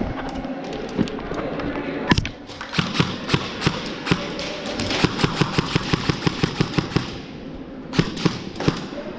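Airsoft guns firing: a single sharp shot about two seconds in, then a fast string of shots at about five or six a second for several seconds, and a few more near the end.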